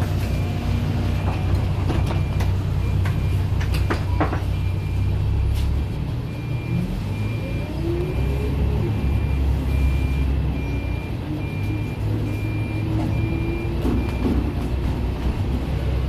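Interior of an old Volvo city bus under way: the engine and drivetrain run with a steady low rumble and a whine that rises and falls in pitch. A short high beep repeats regularly until near the end, with a few rattles and clicks.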